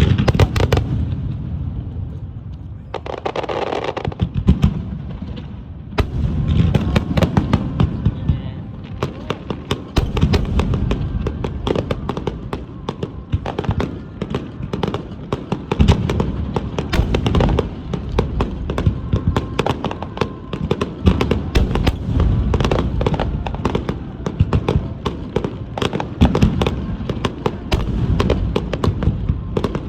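Fireworks display finale: aerial shells bursting in rapid, near-continuous succession, deep booms mixed with many sharp cracks, the barrage thickening after the first few seconds.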